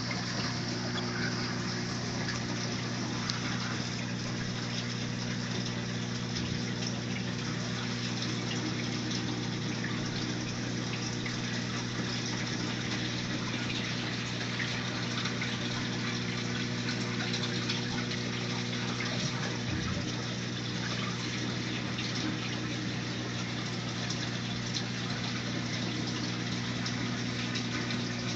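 Reef aquarium's pumps and circulating water running steadily: a low hum of several steady tones under an even hiss of moving water.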